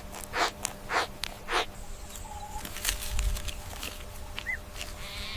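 A badger snuffling: short breathy puffs and snorts, about one or two a second, fading out after about two seconds. A couple of faint chirps follow.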